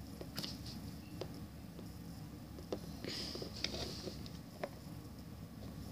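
Faint handling noise of small plastic toy figurines being moved by hand: a few scattered small clicks and a soft rustle about three seconds in, over a low background rumble.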